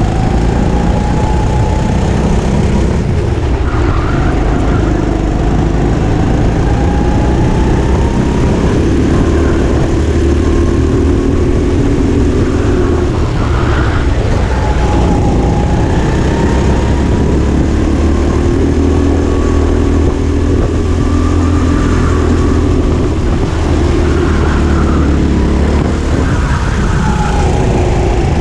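Go-kart engine at racing speed, heard from on board, its pitch rising and falling again and again as the kart accelerates out of corners and slows into them.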